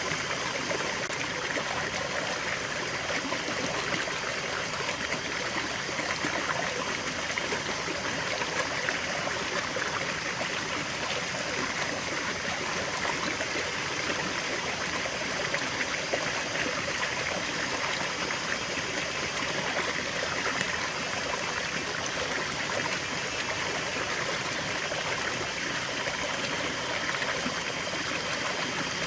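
Small stream of water flowing and trickling steadily, an even rushing babble with no breaks.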